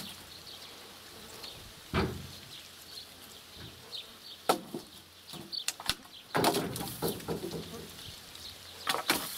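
Birch logs thrown off a truck bed, landing on a log pile with sharp wooden knocks and clatters, about five times a second or two apart.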